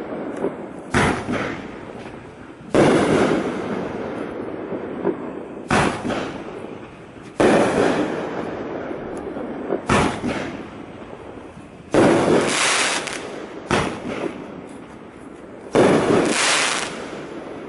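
Topgun 'Big Win' 7-shot fireworks cake firing shells in sequence. There is a sharp bang roughly every two seconds: shorter launch thumps alternate with louder aerial bursts, and each burst trails off over a couple of seconds. The last bursts have a bright crackling hiss.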